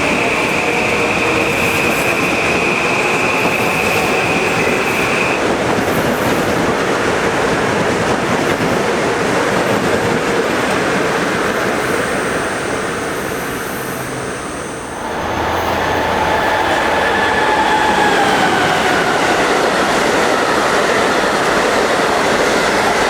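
Passenger train running past close by: continuous wheel-on-rail noise with a high wheel squeal over the first few seconds. About two-thirds of the way through, the noise dips briefly, then returns with a whine that slides slowly down in pitch.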